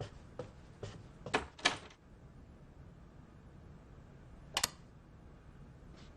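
Footsteps on a hard floor, about two a second, the last couple louder, then a single sharp knock later on, as of a door.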